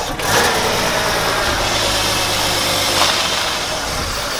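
BMW E36 engine idling steadily, started up so the car's coolant leak can be traced.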